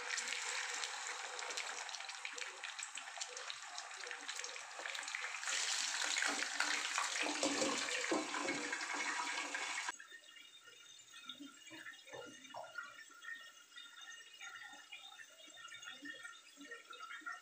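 Food sizzling and crackling in hot oil in a frying pan, growing louder, while a steel lid is set on the pan. It stops abruptly about ten seconds in, giving way to quieter scraping and knocking as chillies are crushed with a stone pestle in a stone mortar.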